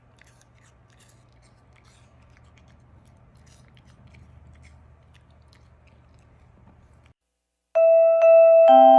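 Alaskan Klee Kai chewing quietly, with faint scattered crunchy clicks. About eight seconds in, a loud chiming tune of bell-like mallet notes starts.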